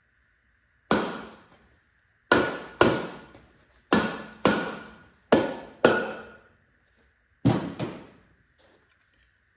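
Eight sharp knocks, several in pairs about half a second apart, each ringing out briefly, over a faint steady high hum.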